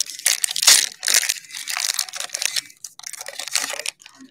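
Foil wrapper of a basketball trading card pack being torn open and crinkled by hand, a dense crackling that stops shortly before the end.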